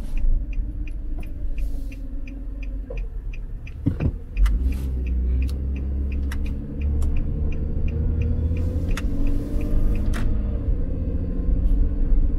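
Engine and road rumble heard from inside a car's cabin as it drives and turns. There is a bump about four seconds in, then the rumble grows and the engine note rises as the car pulls away. A steady, quick ticking from the turn indicator runs through most of it.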